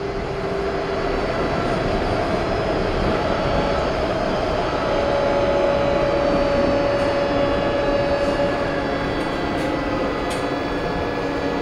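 1983 Budd Universal Transit Vehicle subway car heard from inside while running at speed: a steady rolling rumble of wheels on rail with a motor whine holding a few steady tones.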